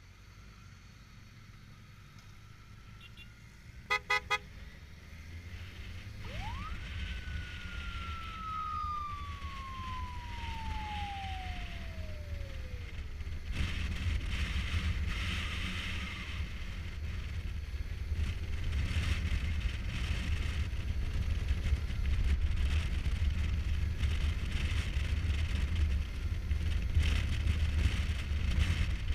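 Kawasaki Versys 1000 inline-four motorcycle pulling away and riding on a dirt road, its engine rumble and the wind noise growing steadily louder as it picks up speed. Three short horn toots sound about four seconds in, and a single high tone rises sharply and then slides slowly down over about seven seconds.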